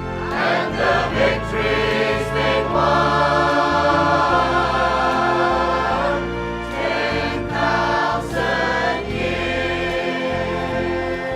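Choir singing a gospel hymn with music, holding long notes.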